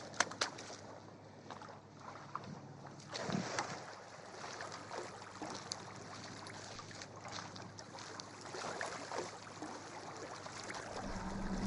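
Wind and waves washing against the shore, with a few faint clicks.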